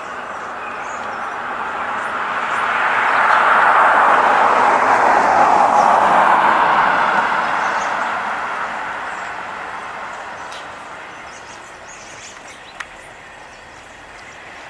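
A passing vehicle: a rushing noise that swells to a peak about four to six seconds in, then slowly fades away. A single sharp click comes near the end.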